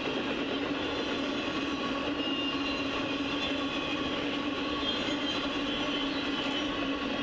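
Intermodal freight train's container cars rolling past: a steady, unbroken rush of steel wheels on rail with light clickety-clack and a few thin steady ringing tones over it.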